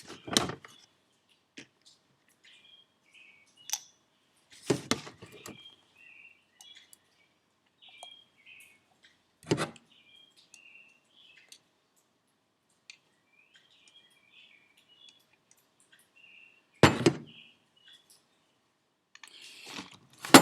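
Turbocharger parts being handled on a workbench during a rebuild: a few separate sharp knocks and clicks of small metal parts and tools, several seconds apart, with faint high chirping between them.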